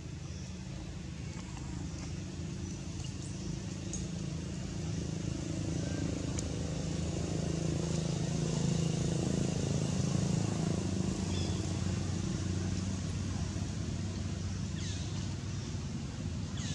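Low engine drone of a passing motor vehicle, swelling to its loudest about halfway through and then fading.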